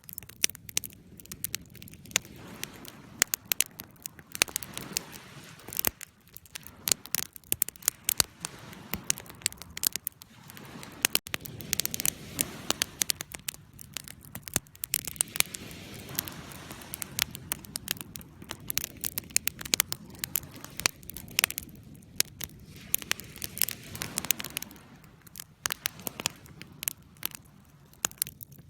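Campfire burning with irregular crackles and pops over a low hiss.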